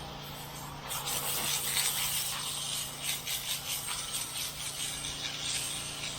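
Soft-wash spray hissing hard against a surface, starting about a second in and wavering as the stream moves, over the steady hum of the gas-powered pump engine.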